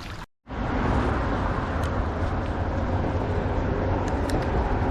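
A vehicle on the move: steady engine and travel noise, a low hum under an even hiss, beginning after a short gap of silence just after the start.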